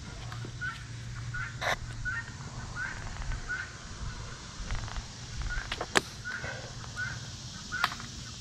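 A bird calls over and over in short chirps, about two a second, with a short break in the middle. Over it come a few sharp clicks and clacks of metal climbing hardware and rope being handled, the loudest about six seconds in.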